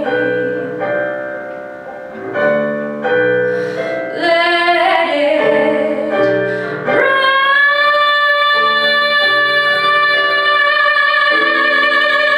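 Woman singing a musical-theatre ballad over piano accompaniment. Piano chords repeat through the first half; then about seven seconds in her voice slides up into one long held note with vibrato.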